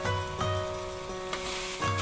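Chopped chilli and garlic sizzling in hot oil in a wok, the sizzle getting louder about a second and a half in as a spatula starts stirring, under background music with a steady beat.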